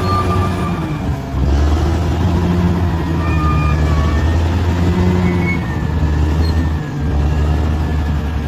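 Bulldozer's diesel engine running under changing load: a loud, steady low drone that steps in level about a second in and again near the end, with faint higher whining tones above it.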